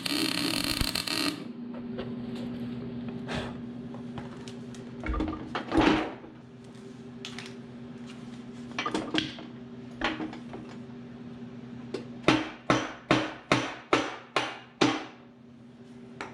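A run of about eight sharp strikes on the mower deck, roughly two and a half a second, over a steady low hum. It follows a few scattered knocks and a loud hissing noise that cuts off about a second in.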